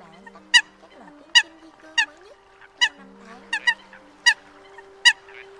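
Eurasian coots calling: a short, sharp, high-pitched call repeated about eight times, roughly every 0.7 s, over lower held tones.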